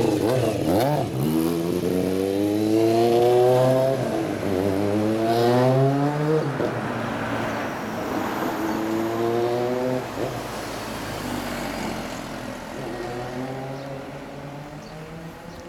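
Kawasaki Zephyr 400's air-cooled inline-four engine pulling away, revving up and shifting up through the gears about four times. It fades as the motorcycle rides off down the street.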